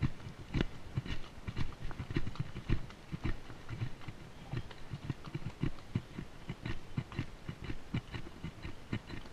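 A horse's hooves striking a rocky dirt trail at a walk: an uneven run of dull thuds and sharper clicks, several a second.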